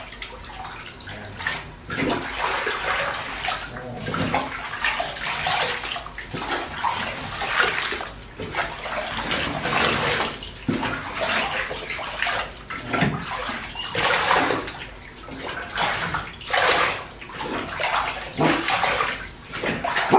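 Bath water splashing in a bathtub as a puppy is rinsed off, water poured over its coat from a cup again and again, with a fresh pour every second or two.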